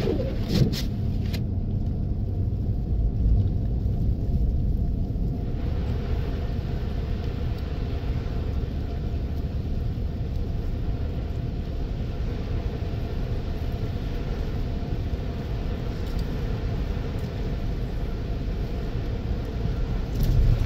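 Steady low rumble of a car driving on a wet, slushy road: engine and tyre noise heard from inside the vehicle, with a few light clicks in the first second or so.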